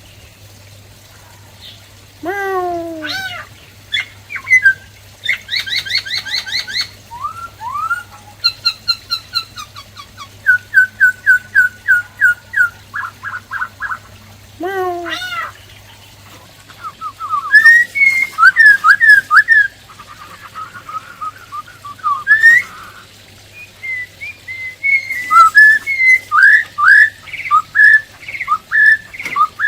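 Black-throated laughingthrush (khướu bạc má) singing a long, varied song of loud whistled phrases: steep falling whistles, fast trills, and quick series of repeated notes, with short pauses between phrases.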